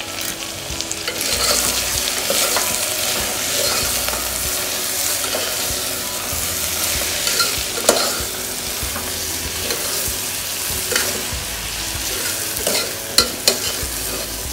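Vegetables, sprouts and freshly added ground spices frying in oil in a pan, sizzling steadily while a spatula stirs them, with a few sharp clicks of the spatula against the pan, one about eight seconds in and two close together near the end. This is the spices being fried in the oil before the rice goes in.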